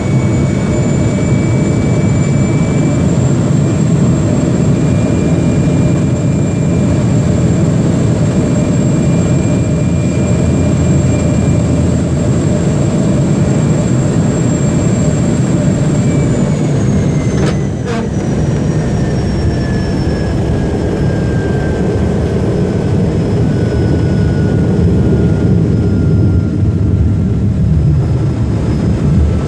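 De Havilland DHC-3 Turbo Otter floatplane's turboprop engine and propeller running steadily, heard from inside the cabin during the landing on water. A bit past halfway the engine's whine falls slowly in pitch as power comes off, with a brief knock around then, and a lower rumble runs on as the plane slows on the water.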